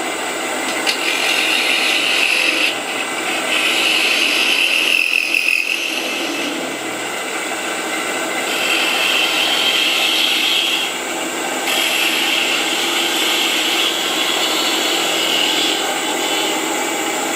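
Wood lathe running while a turning tool cuts a small piece of timber, in several passes of a couple of seconds each that come and go over the steady run of the machine.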